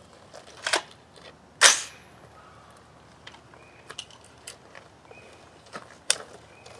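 Metallic clicks and clacks of an AR-style .223 rifle being handled and readied at a shooting bench. The loudest is a sharp clack about a second and a half in, with lighter ticks afterwards and another sharp click near the end as the rifle is shouldered.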